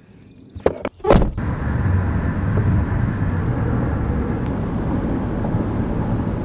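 A few knocks in the first second or so, then steady road and engine noise inside a car's cabin at highway speed.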